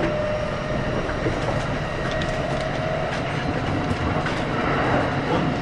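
Kintetsu 5800 series electric train running between stations, heard from on board: a steady rumble of wheels on rail with scattered clicks from the track and a faint whine that edges up slightly in pitch.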